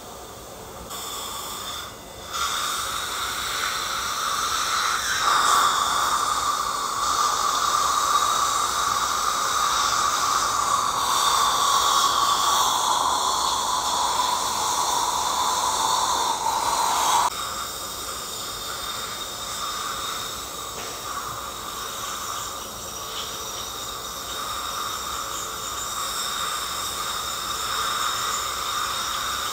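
Dental suction hissing. It cuts off suddenly about 17 seconds in, leaving the steady high whine and water spray of an ultrasonic scaler working on tartar.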